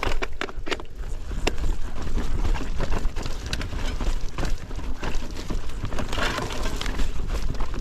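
Mountain bike riding over a rough trail: tyres rolling and crunching, with many sharp clicks and knocks from the bike rattling over the bumps, over a steady low rumble of wind on the action camera's microphone.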